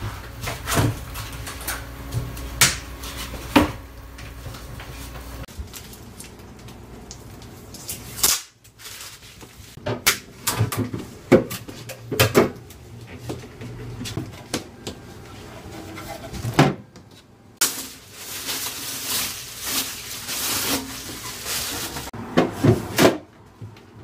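Doors and plastic drawers of a new Iris Ohyama IRSN-23A-S refrigerator being opened, pulled out and shut: a string of separate clicks and knocks, with a stretch of rushing noise about three-quarters through.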